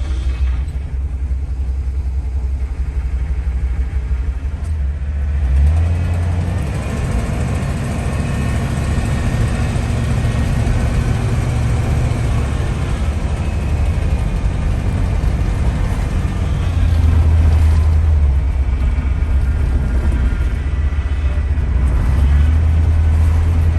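A 1976 GMC Motorhome driving on a road: steady engine and road rumble that swells a few times as it pulls.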